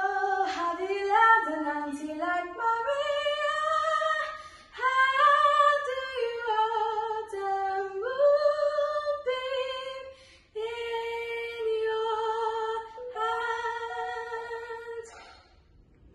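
Women singing a slow melody unaccompanied, phrase by phrase, with a short break about ten seconds in; the singing fades out just before the end.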